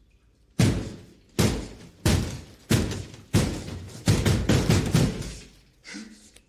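A series of heavy, sudden thuds, about eight blows roughly two-thirds of a second apart, with a pause before a last blow near the end: a man pounding his fists against a wall.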